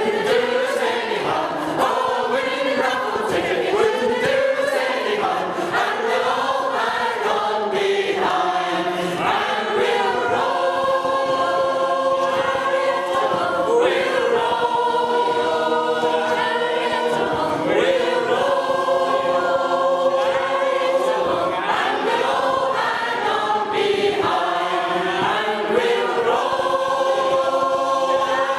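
Mixed community choir of men's and women's voices singing unaccompanied in harmony: moving lines at first, then long held chords.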